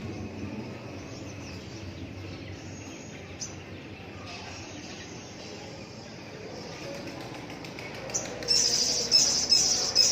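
Small bird giving a rapid run of loud, high-pitched chirps, starting about eight seconds in after a quiet stretch.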